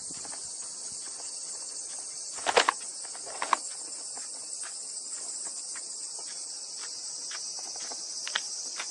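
Steady high-pitched chorus of insects. A few sharp clicks and knocks cut through it about two and a half seconds in, again around three and a half seconds, with fainter scattered ticks.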